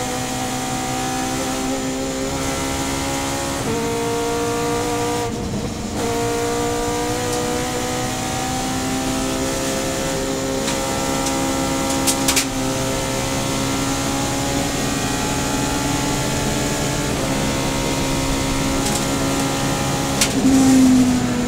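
Subaru BRZ race car's short-stroke two-litre flat-four boxer engine at speed, heard from inside the cabin: its pitch climbs slowly and steps down a few times at gear changes as the car accelerates hard. A couple of sharp clicks come about twelve seconds in, and the engine gets louder briefly near the end.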